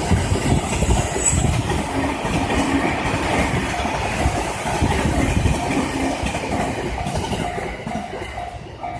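Electric passenger train passing over a level crossing, its wheels clattering rhythmically over the rail joints, with the crossing's warning bell ringing repeatedly through the second half.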